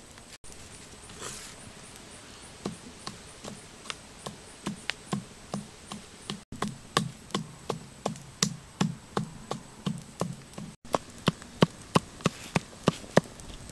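Pestle pounding red chillies in a half coconut shell mortar: a steady run of dull knocks, about two strikes a second, starting a couple of seconds in and getting louder near the end.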